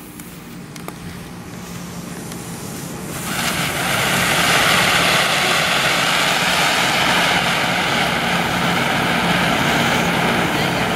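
Tomahawk rocket fountain firework: the fuse fizzes quietly for about three seconds, then the fountain ignites and sprays sparks with a loud, steady rushing hiss.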